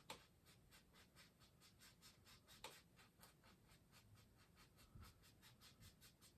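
Faint, scratchy strokes of a paintbrush on canvas, about four a second.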